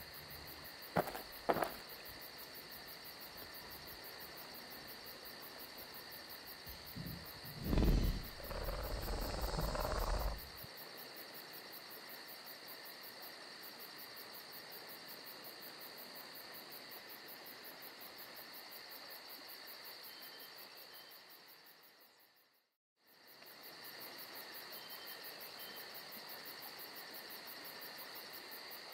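Quiet, steady night-insect ambience of chirping crickets. Two short clicks come about a second in, and a louder thud with rustling noise comes around eight to ten seconds in. The ambience drops out briefly about two-thirds of the way through.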